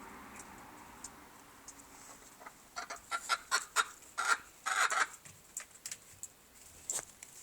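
Silver Appenzeller chicken clucking: a quick run of short, sharp clucks starting about three seconds in and lasting about two seconds, then one more near the end.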